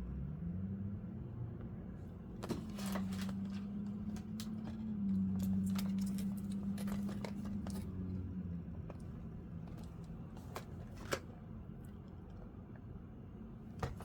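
Scattered clicks and taps from handling a diecast car and its plastic packaging, over a low hum that rises in pitch at the start, holds steady, then fades out after about eight seconds.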